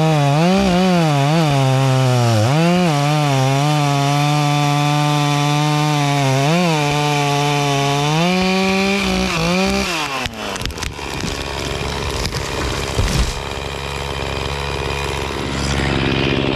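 Echo CS-490 two-stroke chainsaw at full throttle, making the felling cut through a tree trunk. Its pitch dips and recovers several times as the chain loads up in the wood, then holds steady. About ten seconds in the throttle drops off and the engine tone falls away, followed by cracking and a loud crash as the tree comes down.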